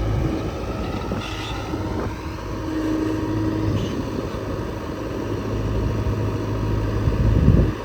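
JCB 3DX backhoe loader's four-cylinder diesel engine running steadily while the machine works, swelling louder briefly near the end.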